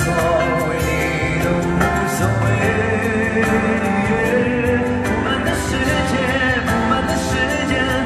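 A male pop singer singing live into a microphone over backing music with a steady beat.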